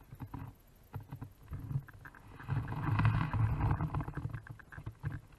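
Small waves lapping and sloshing against a camera housing held at the water's surface: uneven low rumbling surges with small splashy clicks, loudest in the middle.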